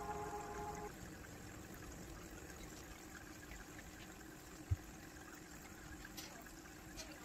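Faint trickling water in a home aquarium, with a single short low thump about two-thirds of the way through. A held ringing tone stops about a second in.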